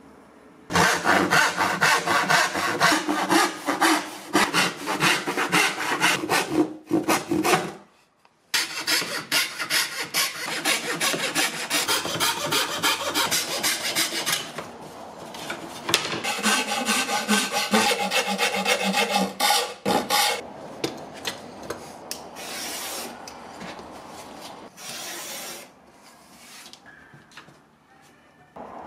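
Hand fret saw cutting thin MDF board with fast, even strokes, in runs of several seconds broken by short pauses. After about twenty seconds only quieter, scattered handling sounds remain.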